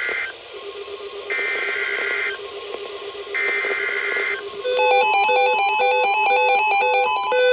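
NOAA Weather Radio Emergency Alert System SAME header data bursts, shrill screeching digital tones about a second long and a second apart. About four and a half seconds in, a rapid electronic alert tone begins, several pitches switching quickly like a ringing phone, signalling the start of a severe thunderstorm warning.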